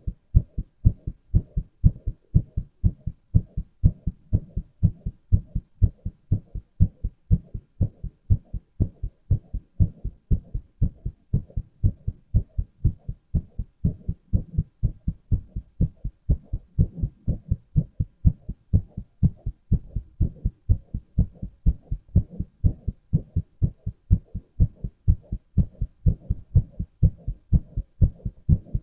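A man's heart beating, close up: steady, regular lub-dub thuds that are low and dull, a little over one beat a second.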